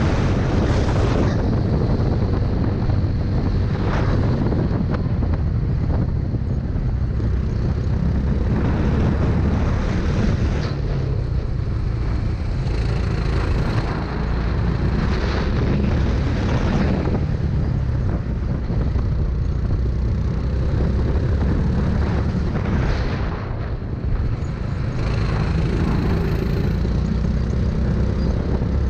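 Racing kart engine running under load close to the onboard microphone, its note rising and falling with speed through the corners.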